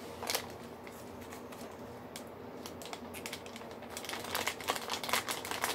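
Clear plastic packaging bag crinkling and rustling as it is handled and pulled open, with scattered small clicks. The crinkling grows busier and denser over the last couple of seconds.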